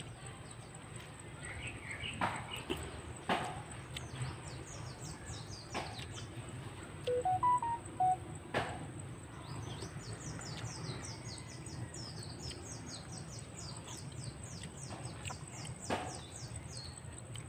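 Outdoor ambience of birds chirping in a rapid run of short, high, falling notes over a steady high whine, with a few clear whistled notes near the middle. Now and then a sharp click of a spoon against a coconut-shell bowl.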